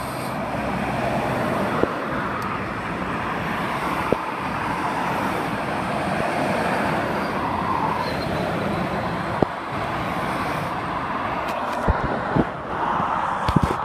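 Steady dual-carriageway traffic noise, tyres and engines, swelling in the middle as a loaded articulated flatbed lorry passes beneath, with a few light knocks near the end.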